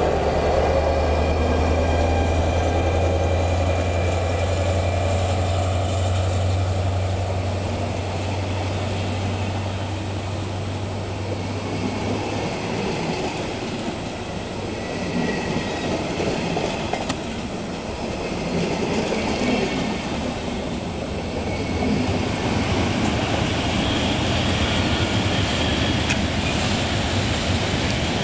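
Siemens ER20 Hercules diesel-electric locomotive (DB class 223) pulling away under power, its engine a steady low drone for about the first twelve seconds. The drone then fades and passenger coaches roll past with wheel and rail noise, which grows louder again near the end.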